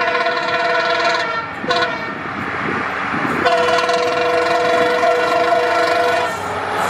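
Multi-note air horn of an EMD WDG4 diesel locomotive blowing a long blast, a short toot, and after a pause another long blast, in an unusual honking pattern. Under it is the running noise of the express passing through at speed.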